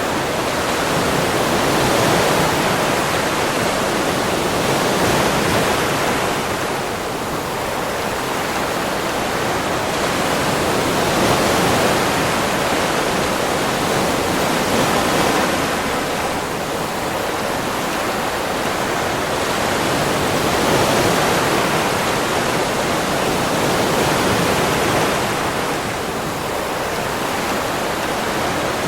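Ocean waves washing onto a beach: a continuous rushing of surf that swells and eases every few seconds.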